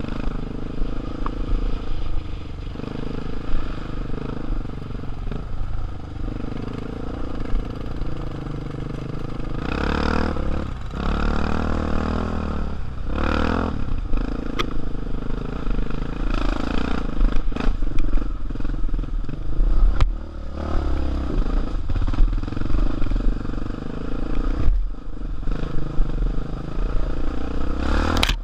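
Dirt bike engine running on a rough dirt trail, with the throttle opened in several bursts around the middle and near the end. Rattling and knocking from the bike over the ruts runs through it.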